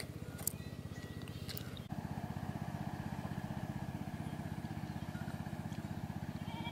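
A small engine running steadily in the background: a rapid, even low pulsing that gets louder after about two seconds. A few sharp clicks from eating come in the first two seconds.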